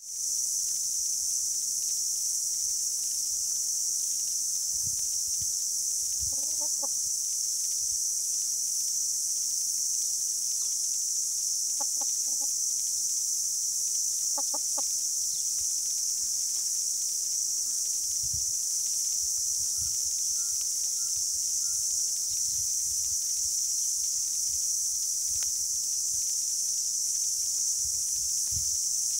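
Hens giving a few short, soft clucks, three times, over a steady high-pitched chorus of insects.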